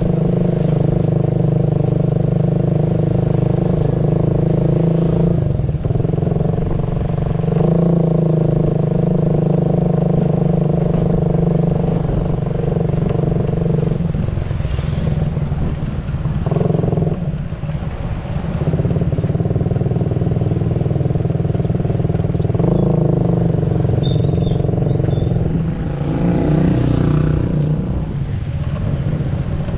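Motor vehicle engine running close by, its note changing every few seconds as it speeds up and slows.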